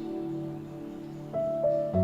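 Soft background music: a held low note, then new plucked string notes coming in near the end.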